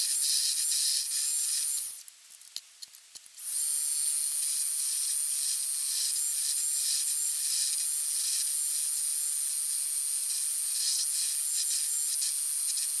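Metal lathe turning a homemade transfer punch: a steady, mostly high-pitched cutting noise that stops for a moment about two seconds in.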